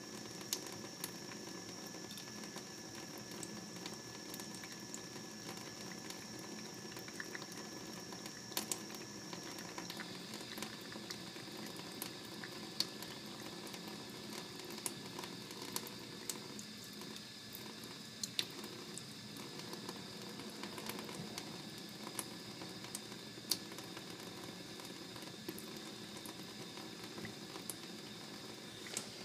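Thin stream of tap water running steadily into a stainless steel sink basin, with scattered small ticks and splashes.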